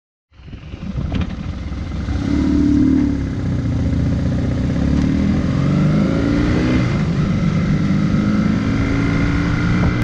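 BMW R1150GS boxer-twin engine under way and accelerating, its pitch climbing, dropping at a gear change about seven seconds in, then climbing again.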